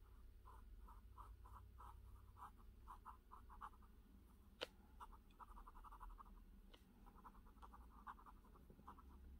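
Faint scratching of a Benu Edelweiss fountain pen's custom flex nib on grid paper: quick short back-and-forth strokes in runs, colouring in a small square with ink. The strokes pause near the middle, where there is a single sharp click.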